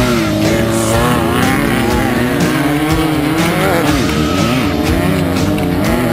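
Engine of a Volkswagen-powered Class 9 off-road racing buggy, its revs rising and falling rapidly and repeatedly, with music playing over it.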